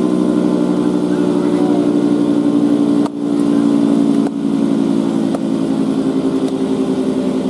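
Federal Signal 3T22 three-tone rotating siren sounding a steady chord of several tones, chopped by the spinning rotor, with two brief dips in level about three and four seconds in.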